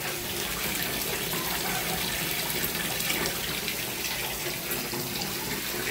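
Bath tap running, water pouring into a filling bathtub with a steady splashing hiss.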